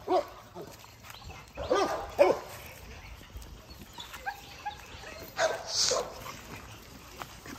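Pit bulls barking in short, separate bursts: a bark at the start, two or three more about two seconds in, and a rougher, harsher bark around five and a half seconds in.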